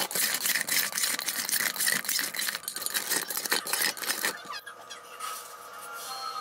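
Metal tongs clattering and scraping against a stainless steel bowl as chicken wings are tossed in barbecue sauce: a dense run of clicks and scrapes that stops about four seconds in, leaving a faint steady hum.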